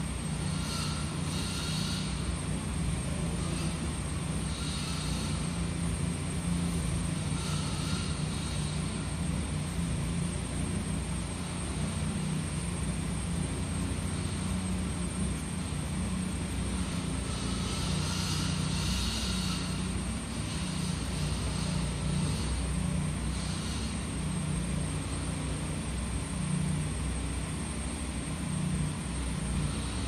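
Scratchboard nib scraping the black coating in short strokes now and then, a faint hiss over a steady low mechanical hum.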